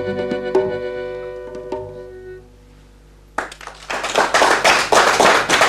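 Accordion, acoustic guitar and double bass end a piece on a held accordion chord with a couple of plucked notes, dying away after about two seconds. After a short pause, a studio audience starts clapping and keeps on applauding.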